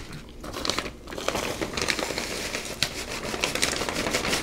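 Plastic bag of potting mix crinkling and rustling as it is handled and tipped over the pot, starting about a second in, with soil trickling out of it.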